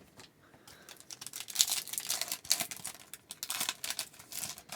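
Foil trading-card pack wrapper crinkling and crackling as it is torn open and handled, starting about a second in.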